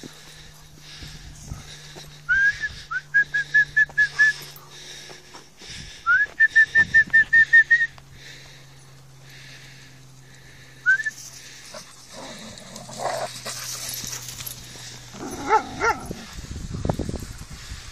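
Dog whining excitedly in two runs of quick high yips, about five a second, each run opening with a rising whine, then a single yelp about eleven seconds in. A lower, rougher cry follows near the end.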